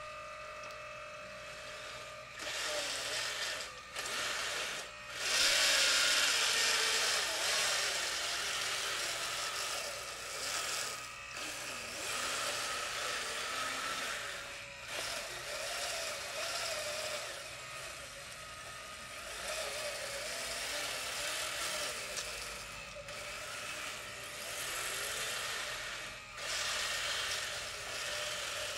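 Radio-controlled scale model Volvo wheel loader working: the whine of its small electric motors and gearing rises and falls in pitch as it drives and moves the bucket, cutting out briefly several times.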